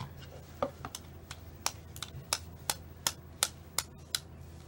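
A run of about ten sharp taps, roughly three a second, as a small packet of guar gum powder is tapped and flicked over a plastic bowl to shake the powder out. The taps stop shortly before the end.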